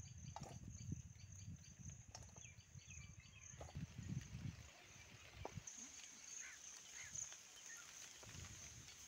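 Faint outdoor field ambience: a steady high-pitched insect drone that grows a little louder in the second half, with a low rumble on the microphone during the first half, a few faint ticks, and short bird chirps near the end.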